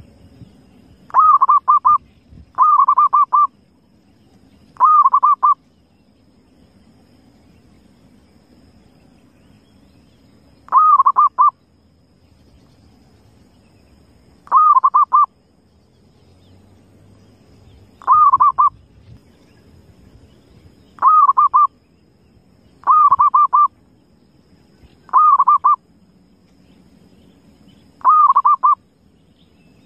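Zebra dove (perkutut) cooing: ten short trilled phrases, each under a second long, coming at irregular gaps of about two to six seconds.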